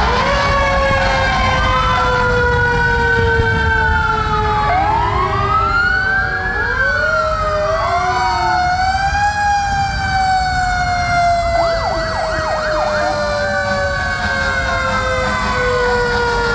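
Several fire truck sirens sounding at once: overlapping wails rising and falling, one long tone sliding slowly down in pitch, and a short burst of fast yelping about twelve seconds in.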